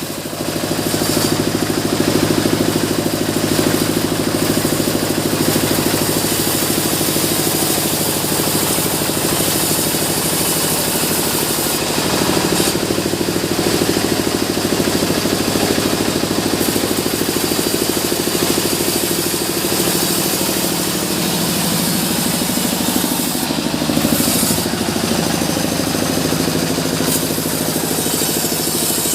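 Sawmill saw machinery running steadily, a loud constant machine drone with a strong low hum and a hiss across the highs. The tone shifts a little about twelve seconds in and again near the end.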